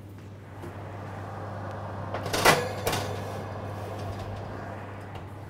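Metal baking tray being slid onto an oven rack, with one sharp metallic clank about halfway through and a lighter knock just after, over a steady low hum.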